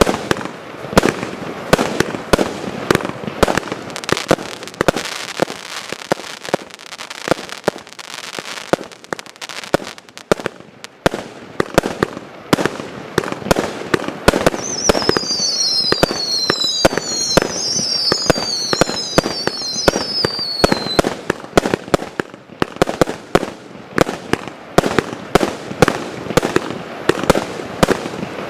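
Consumer fireworks going off in rapid succession, with dense bangs and crackle throughout. About halfway through, a cluster of several overlapping whistles falls in pitch for several seconds.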